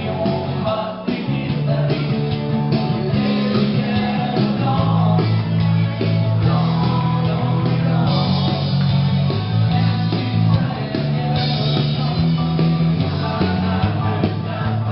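Live rock band playing loudly: electric guitar and bass guitar over a steady bass line, with singing.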